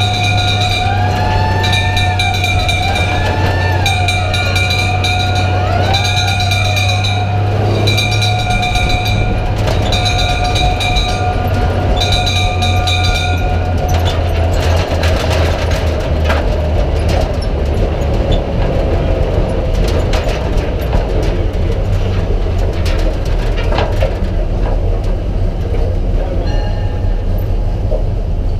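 Pre-war Leyland Metz turntable ladder fire engine running through streets, its engine and road noise heard from the back of the vehicle. Through the first half a high tone pulses on and off about once every two seconds over gliding, rising-and-falling tones; these stop about halfway, leaving rougher engine and road noise.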